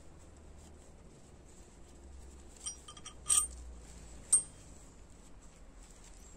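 Metal pieces knocking together in three short, ringing clinks, the middle one the loudest, over a low background hum.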